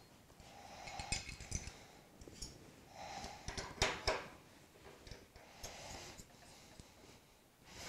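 A few faint metallic clicks and knocks as a bowl gouge and its sharpening jig are handled and the jig's sliding arm is set at the bench grinder, with soft rustling between.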